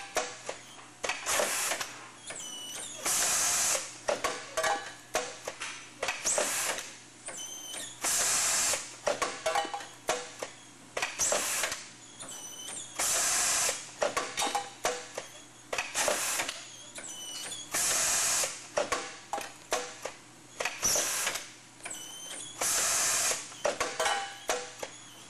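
System Packaging model 1300 roll-stock tubing bagger cycling: a short burst of air hiss about every two and a half seconds, with a clatter of mechanical clicks and clacks between the bursts.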